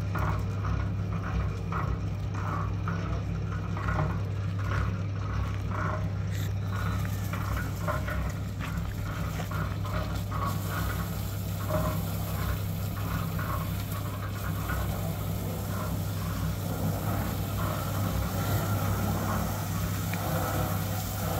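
Water running from a garden hose and splashing onto a concrete mixer and a metal wheelbarrow over a steady low machine hum. Scattered small clinks come in the first few seconds, and the hiss of the spray grows louder about halfway through.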